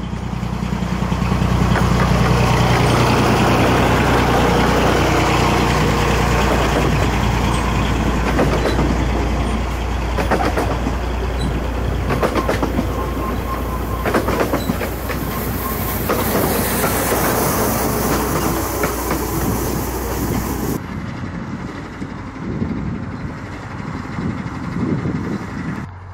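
A 15-inch-gauge miniature railway train hauled by a diesel locomotive passes close by: the engine's steady hum swells as it approaches, then the carriages roll past with the wheels clicking over the rail joints and a brief squeal. About 21 seconds in the sound cuts to a quieter, more distant train.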